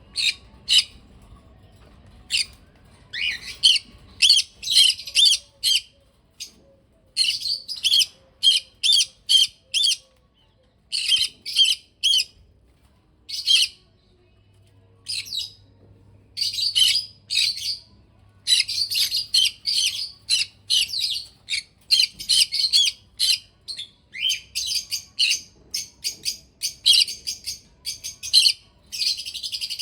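Small pet parrots chirping: quick series of short, high-pitched chirps in clusters with brief pauses, running almost without a break near the end.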